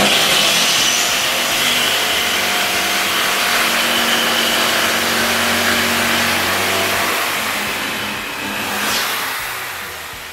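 Electric power saw cutting through a parquet floorboard: a loud, steady motor-and-blade noise that starts abruptly, runs for about eight seconds and then fades off near the end.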